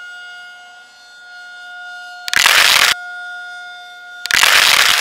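Cartoon siren sound effect from a speaker-headed Siren Head creature: a steady siren tone that swells and fades, broken twice by loud blasts of harsh noise, the second cutting off sharply.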